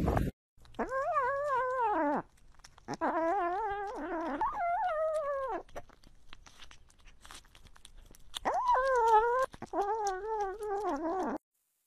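Ginger kitten eating wet cat food from a metal dish close to a small microphone, making long warbling cries as it eats: three in the first half, two more near the end. Soft wet chewing clicks fill the gaps between them.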